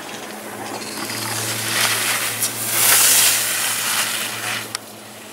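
Ski edges carving and scraping on hard-packed snow as a giant slalom racer passes close by, a hiss that builds to its loudest about three seconds in and then fades, with a sharp tick near the end.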